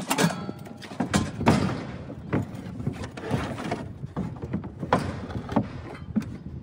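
Irregular knocks and thumps, about one or two a second, over a steady low rumble.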